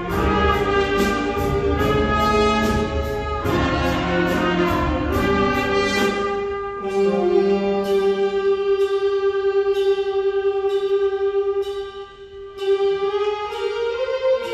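Children's school wind band playing, brass and woodwinds over evenly spaced percussion strokes. About halfway through the full band thins to a long held note over the beat, with a short dip just before the end.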